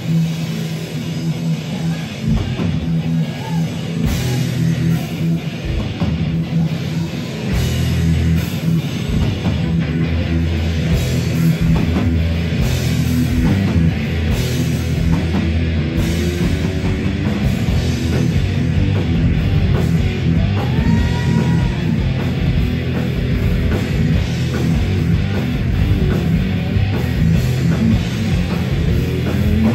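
Live crossover thrash band playing loud: distorted electric guitars, bass guitar and drum kit. The full band grows louder about seven seconds in.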